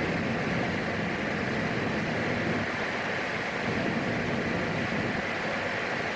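Steady in-flight cabin noise of a PAC 750XL single-engine turboprop: an even rush of engine and airflow noise with no changes.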